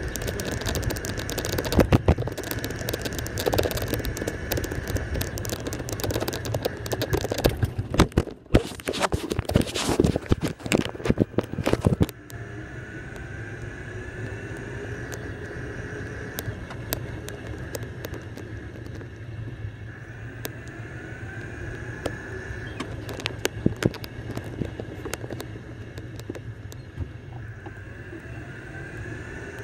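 Golf cart driving along a road, with many knocks and rattles for the first twelve seconds, then running more quietly and steadily with a faint whine that rises and falls in pitch.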